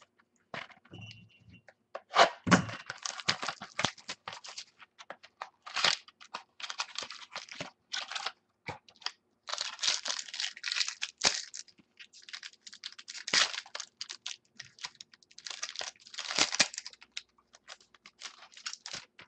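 A baseball card pack being torn open and the cards handled: crinkling and tearing of the wrapper and rustling cards, in dense clusters of quick crackles with short pauses between them.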